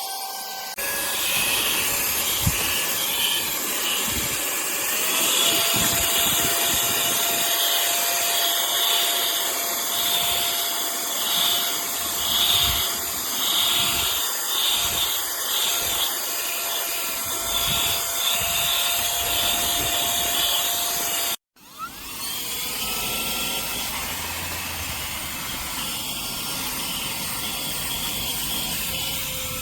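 Cordless handheld vacuum cleaner running, its motor giving a steady whine over a rush of air that wavers as the nozzle works over a surface. The sound breaks off for a moment about three quarters of the way through, then carries on more evenly.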